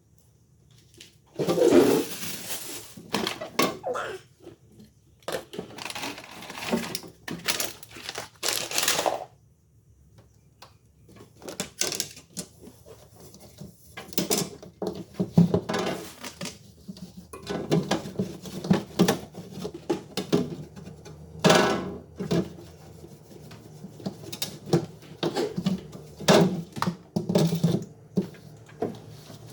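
Handling noises from stocking a refrigerator: plastic packaging rustling and crinkling, with containers and lids clicking and knocking at irregular intervals.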